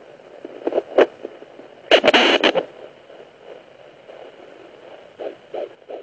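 Sonoline B fetal Doppler speaker hissing, with loud scraping and crackling twice as the probe is moved over the belly to search for the heartbeat. Near the end a couple of faint, quick pulses come through as the fetal heartbeat is picked up.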